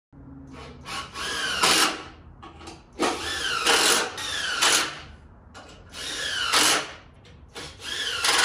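Makita cordless impact drill driving long screws into wood in a few short runs, its motor pitch dipping and rising within each run.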